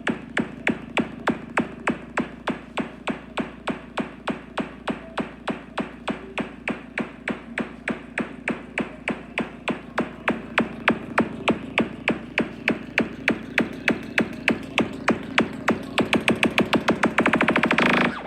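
Electronic dance music played on an Eclipse Pro portable Bluetooth speaker: a steady beat of about four hits a second that quickens into a fast roll near the end.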